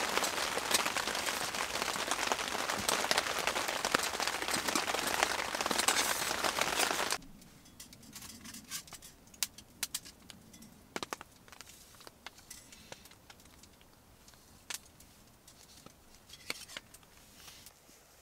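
Steady heavy rain pattering on a tarp shelter, with the sharp crackle of a small wood fire through it. About seven seconds in it cuts off suddenly, leaving a quiet background with scattered faint clicks.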